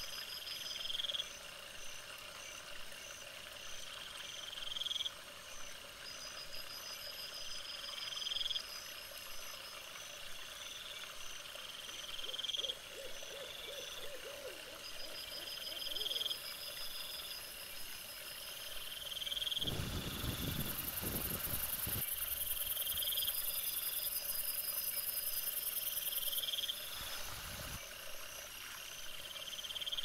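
Night animal calls: a short high-pitched note repeating about every three and a half seconds, with faint rapid trills in between. A low rumbling noise comes in about two-thirds through and again briefly near the end.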